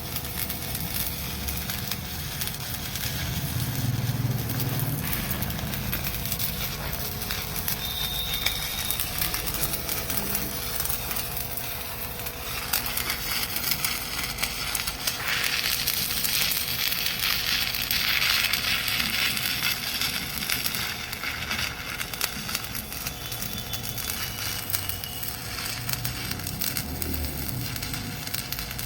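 Stick (arc) welding: the electrode's arc crackles steadily as a bead is run in the flat (1G) position, with a faint steady hum underneath.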